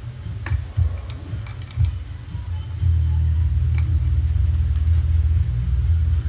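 Light metal clicks and ticks of a hand tool on the cam sprocket and timing chain of a motorcycle engine's cylinder head, a few scattered through the first four seconds. Under them a low rumble swells and falls, then holds steady and loud from about three seconds in.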